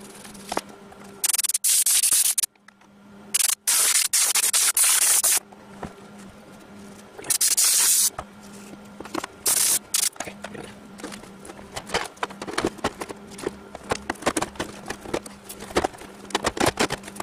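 Four short, loud bursts of hissing in the first ten seconds, then a run of clicks, knocks and scrapes as the plastic housing of a portable air conditioner is handled and fitted back on, over a low steady hum.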